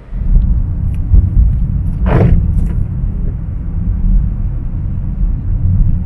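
Low, steady rumble of a car's road and engine noise heard inside the cabin, with a brief louder rushing noise about two seconds in.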